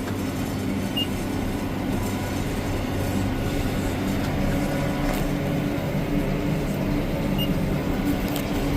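Tractor engine running steadily under load while pulling a round baler through the field, a constant drone with a few steady low tones.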